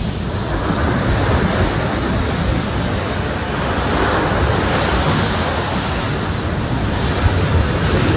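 Surf breaking and washing up a sandy beach, a steady rush that swells about halfway through, with wind buffeting the microphone.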